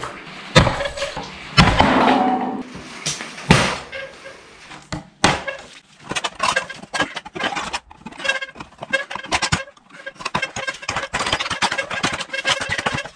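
KA-BAR tanto knife stabbing into steel food cans: a few loud sharp metal impacts in the first few seconds, then a fast run of clicks and scrapes as the blade point is worked down through a can's lid.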